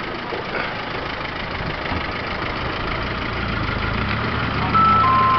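Off-road vehicle engine running steadily, getting louder and deeper about three seconds in. Near the end a brief steady two-pitch tone sounds over it for about a second.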